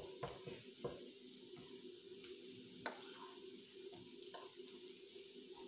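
Rice vermicelli with carrot frying in a pan, a faint steady sizzle over a low steady hum, with a few light knocks and scrapes of a wooden spatula and a spoon against the pan and jar.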